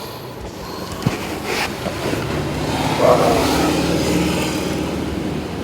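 A road vehicle passing close by, with engine and tyre noise that builds to a peak about three seconds in and then eases off. A single sharp click comes about a second in.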